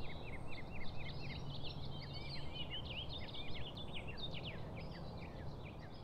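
A chorus of many small birds chirping, quick overlapping calls, over a steady low rumble of outdoor ambience.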